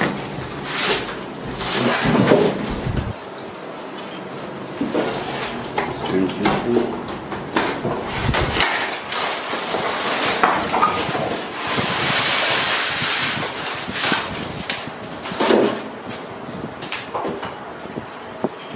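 Large corrugated cardboard TV carton being opened and handled: irregular knocks, bumps and scraping of cardboard, with a longer rasping scrape about two-thirds of the way through.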